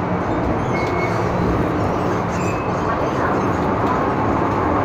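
Steady rumble and rail noise of an MTR M-Train electric multiple unit running, heard inside the passenger car. There are two brief high squeaks, about a second in and again midway.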